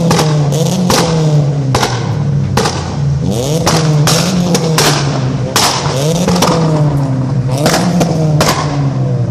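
Toyota Corolla's engine held on a Bee R rev limiter: a steady drone at fixed revs, broken about every 0.8 s by loud exhaust bangs as the limiter cuts in, throwing flame from the exhaust.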